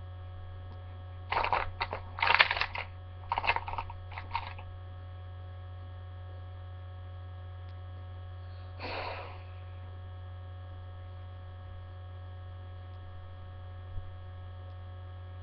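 Steady low electrical mains hum, with a cluster of short noisy bursts in the first few seconds and one more about nine seconds in.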